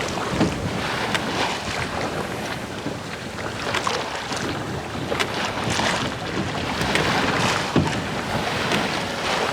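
Wind buffeting the microphone over the rush of water along the hull of a small sailing boat under way, with irregular splashes.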